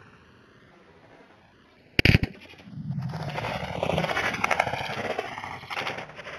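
A single shot from a .375 Ruger rifle about two seconds in, sharp and loud, followed by about three and a half seconds of rough, rumbling noise that fades out near the end.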